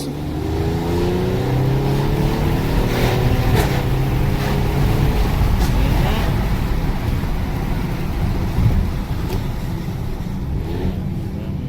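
Car engine pulling under acceleration, its pitch rising slowly over the first five seconds or so, then a steady engine and road rumble.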